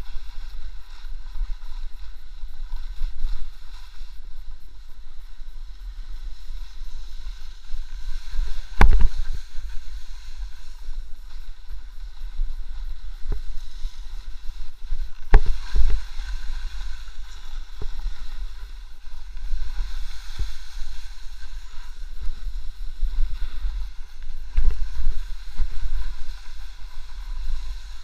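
Wind rumbling on an action camera's microphone during a fast descent of a snow slope, over a steady hiss of snow sliding underfoot. A few sharp knocks stand out, the loudest about nine and fifteen seconds in.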